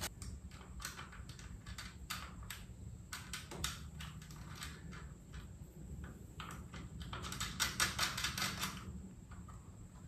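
Small clicks and taps of a plastic headlight and its metal bracket being fitted to an e-bike's front fork with a screw. A quicker run of clicks comes about seven to nine seconds in.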